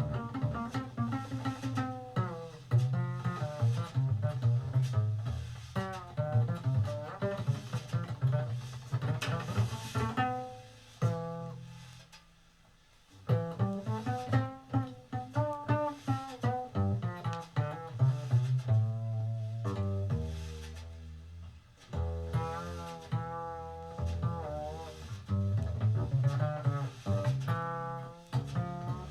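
Jazz double bass solo: a slow melodic line of notes that bend and waver in pitch. It falls almost silent about twelve seconds in, then picks up again.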